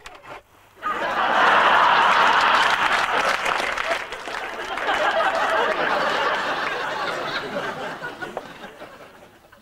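Studio audience laughing and applauding, swelling up about a second in and slowly dying away near the end.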